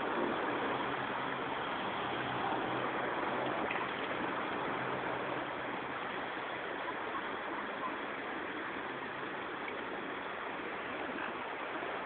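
Steady outdoor background noise, an even rushing hiss with no distinct calls or splashes standing out.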